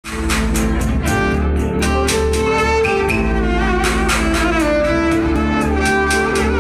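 Violin playing a melody of held notes, live, over a backing track with a steady beat and bass.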